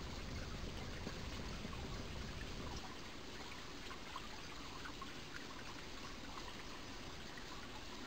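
Mountain stream flowing: a steady rush of water with many small droplet splashes and trickles. The deeper low rumble drops away about three seconds in.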